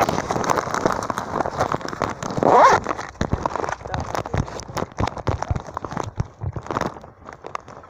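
Handling noise from a phone's microphone being moved about and rubbed or covered: a dense run of crackles and scrapes. A brief rising squeal about two and a half seconds in is the loudest moment.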